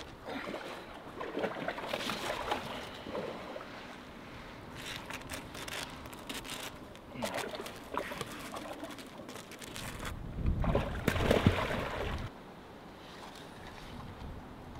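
Shallow pond water sloshing and splashing as a person wades and a monitor lizard moves through it, with a louder rushing stretch about ten seconds in.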